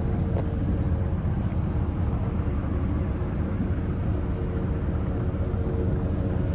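A small motorboat's engine running steadily, a continuous low rumble with a steady hum, heard from on board.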